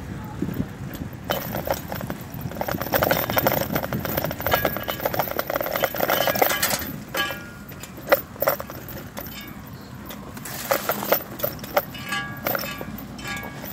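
Bicycle tyres rolling over dry leaves and a dirt trail: a dense crackling for the first several seconds, then sparser clicks and knocks as the bike runs over the ground.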